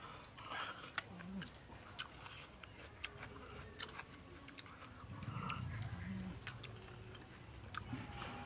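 Close mouth sounds of grilled field snails being eaten: chewing and sucking the meat out of the shells, with scattered sharp little clicks.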